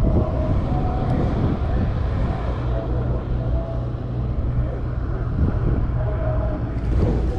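Steady low engine rumble with a constant hum, like a motor idling, continuing without change.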